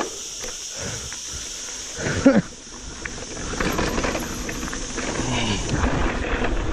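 Mountain bike rolling down a rough trail: tyre noise and rattling over the ground with wind on the microphone, growing louder about halfway through. A brief loud groan-like sound cuts in about two seconds in.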